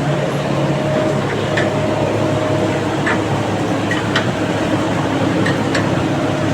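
Steady running machinery with a constant hum, broken by a few faint short clicks.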